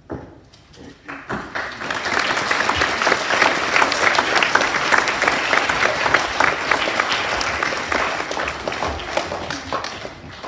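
Audience of schoolchildren applauding. The clapping starts about a second in, swells, and fades away near the end.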